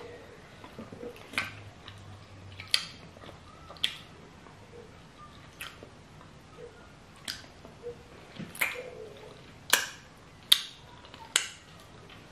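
Messy open-mouthed chewing of fufu with peanut soup: about ten sharp, wet lip smacks spaced roughly a second apart.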